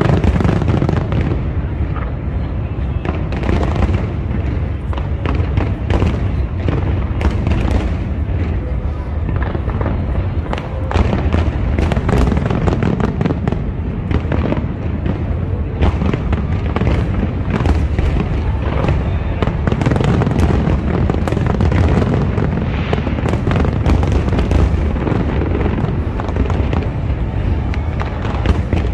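Large aerial fireworks display: a dense, unbroken barrage of bangs and crackles over a steady low rumble.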